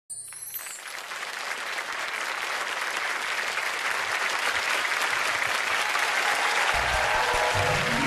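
Studio audience applauding, the clapping swelling over the first seconds. Low sustained notes of a musical intro come in near the end.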